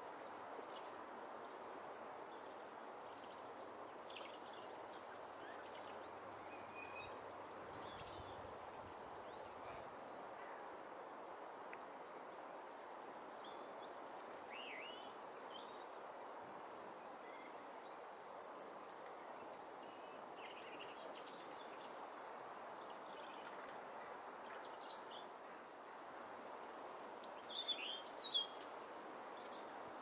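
Small birds chirping and calling in short, scattered high notes over a steady background rush, with a louder call about halfway through and a quick burst of calls near the end.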